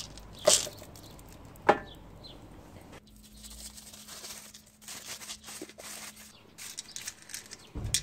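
Objects being handled on a stone worktop: two sharp knocks in the first two seconds, then quieter scattered clicks and rustling, and another sharp knock near the end.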